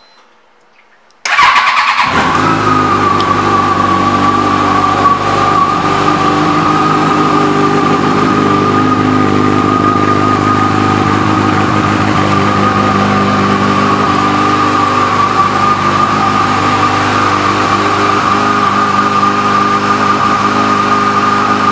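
A 2008 Yamaha FJR1300R's inline-four engine, fitted with dual Two Brothers carbon exhausts, is started about a second in and then idles steadily.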